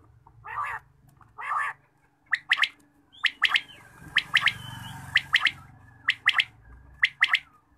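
Quail (batair) calling: two longer, lower notes, then a quick three-note phrase repeated about once a second, six times.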